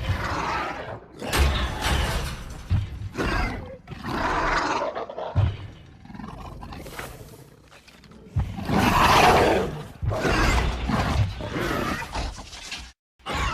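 Indoraptor creature vocalizations: a string of growls, snarls and roars in separate bursts with short breaks, loudest about nine seconds in. The designed voice is mixed from Chihuahua snarls, high pig screams, lion and cougar roars and a dental drill.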